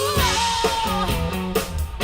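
Live band playing a pop-rock song, with guitar and a woman singing the lead melody.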